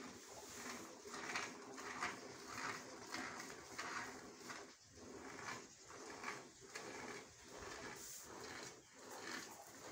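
Hand milking a cow: milk squirting in rhythmic hissing streams into a plastic container, about one and a half squirts a second, strongest in the first half.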